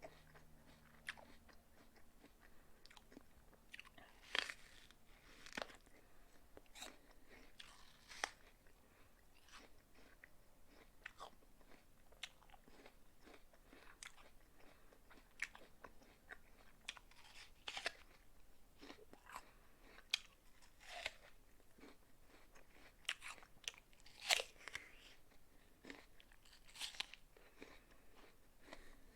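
A person biting into and chewing a crisp raw apple: repeated irregular wet crunches, a few sharper bites standing out.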